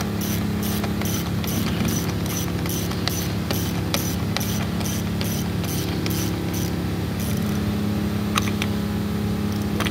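Ratchet wrench clicking about three times a second as it is swung back and forth, tightening the 32 mm axle nut on a forklift steer wheel. The clicking stops about seven seconds in, leaving a few single clicks over a steady low hum.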